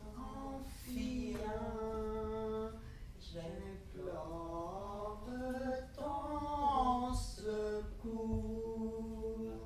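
A woman singing unaccompanied in long held notes, each sustained for one to two seconds, with short breaks and slight pitch slides between them.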